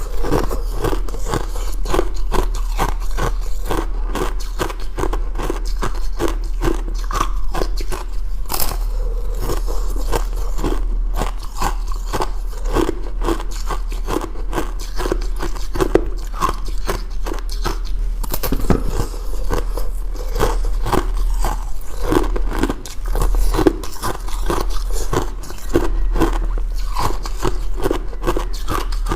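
A person biting and chewing ice close to the microphone: continuous, irregular crunching with many quick cracks, over a steady low hum.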